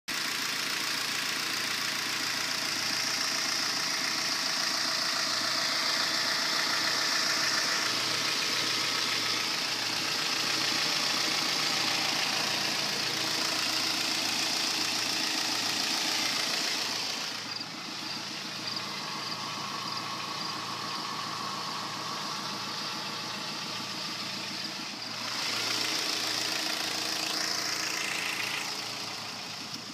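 2010 Kia Forte SX's 2.4-litre four-cylinder idling with a light, regular rod knock: the number 3 connecting-rod bearing has spun. The knock is not violent or very noticeable.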